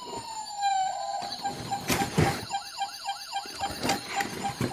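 Electronic siren of a Dickie Toys Push & Play toy fire engine: a tone that falls and then settles into a rapid pulsing wail, about four pulses a second. A few sharp knocks sound over it.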